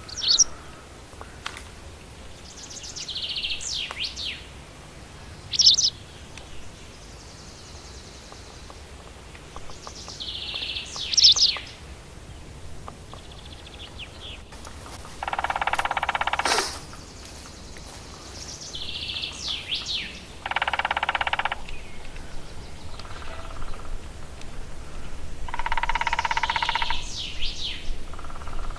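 Small birds calling with short high chirps. Three times in the second half a woodpecker drums on a tree, each roll lasting about a second or a little more.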